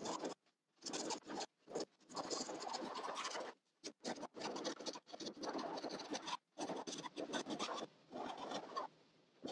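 A hand tool scraping along the wooden sheer edge of a cedar-strip kayak in repeated strokes, each about half a second to a second and a half long, with short breaks between. This is the edge being faired smooth, taking off rough cedar and epoxy so the deck and hull fit tightly.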